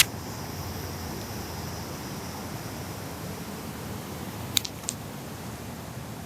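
Steady rushing of a river and waterfall, with two sharp clicks about four and a half seconds in.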